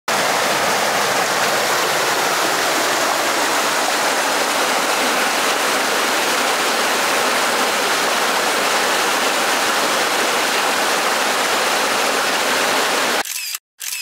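Steady rush of a mountain stream, the Yoshii River flowing through Okutsu Gorge, which cuts off abruptly about 13 seconds in.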